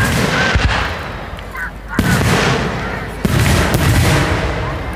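Aerial fireworks shells bursting overhead: sharp bangs at the start, about two seconds in and just over three seconds in, each followed by a long echoing tail.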